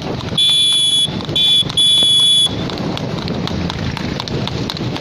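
Horse-drawn two-wheeled cart at a fast trot on a paved road: hoofbeats clattering over steady road noise. About half a second in come three shrill, high-pitched beeps, long, short and long, the loudest sound here.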